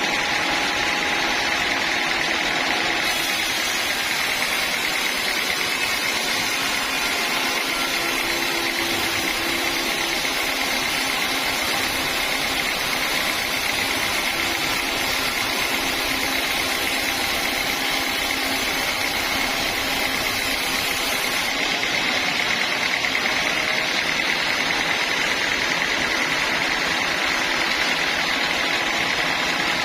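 Sawmill machinery running steadily with a constant mechanical noise. An added high hiss comes in about three seconds in and drops away about twenty seconds later.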